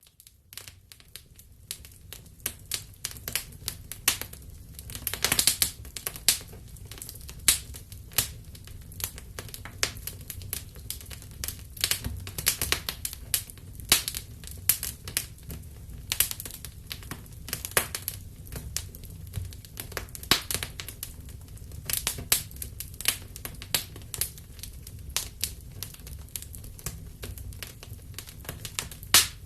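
Wood fire crackling in a fireplace, with irregular sharp pops and snaps over a steady low rumble of the burning logs. It starts faint and builds up within the first couple of seconds.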